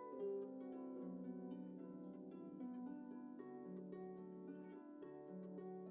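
Quiet background music of plucked, harp-like notes.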